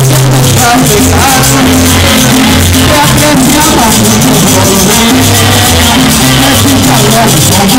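A live Venezuelan parranda band playing loud: a bass line moving in steady notes, quick shaken percussion and singing voices.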